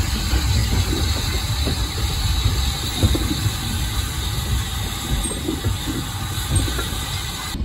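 A small steam tank engine hauling an open wagon, heard from the wagon: a steady rumble of the train running on the line, with a hiss of steam and an occasional knock.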